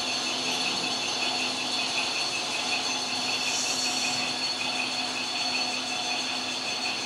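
Steady machine-shop din from machinery running: several steady high whines over a constant noise, with a fast regular pulsing tone and a brief hiss about three and a half seconds in.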